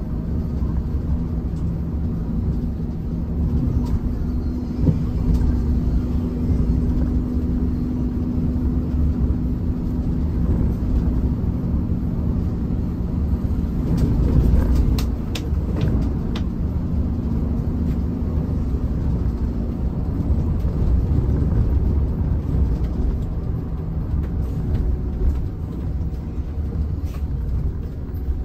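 Steady low rumble of a moving bus, engine and road noise together, with a few light clicks around the middle.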